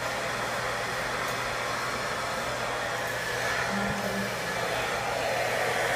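Handheld hair dryer running steadily, blowing on a person's hair: an even rush of air with a low hum beneath it.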